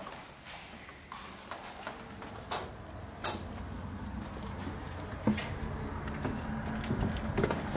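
A few sharp clicks and knocks of footsteps and handling, then an old door being pushed open; a low steady rumble builds in the second half.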